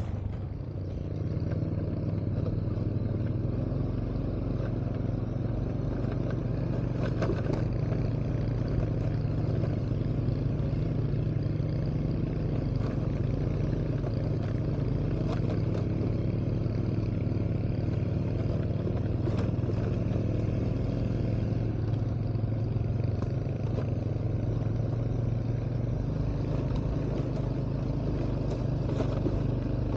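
Motor vehicle engine running steadily while on the move, a constant low hum with occasional light rattles.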